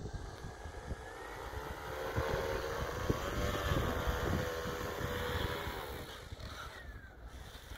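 Motor and propeller of a large radio-controlled model paramotor, a steady propeller drone that swells as it flies close past. The pitch rises and falls briefly in the middle, then the drone fades away as the model comes in to land near the end.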